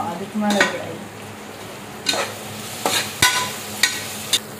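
Perforated metal ladle stirring and scraping onions, green chillies and mint frying in oil in an open aluminium pressure cooker, with several sharp scrapes against the pot over a steady sizzle. The onions are being sautéed toward golden brown.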